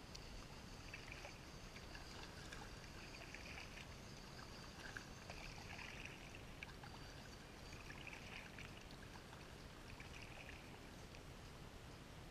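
Faint water noise from a double-bladed kayak paddle dipping into calm water, a stroke about every two seconds.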